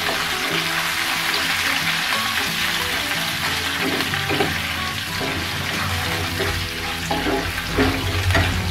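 Oil sizzling in a nonstick frying pan as peanuts, dals, curry leaves and green chillies are roasted for an upma tempering, with a wooden spatula scraping and stirring through them. Soft background music plays underneath.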